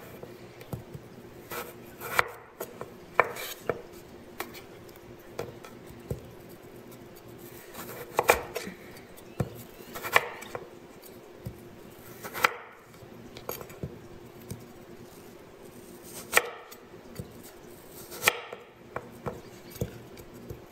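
Cleaver slicing raw taro into sticks on a wooden butcher block: sharp, irregular knocks of the blade going through the root onto the board, a second to a few seconds apart.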